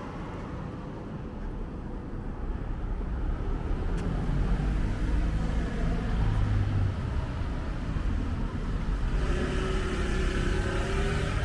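Town-centre road traffic: cars and vans going by with a steady low rumble. Near the end a motor scooter's engine comes up close with a steady note.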